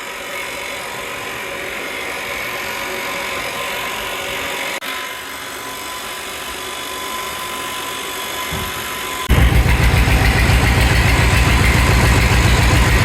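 An engine running steadily; about nine seconds in, the sound changes abruptly to a louder, lower, rapidly pulsing engine running on.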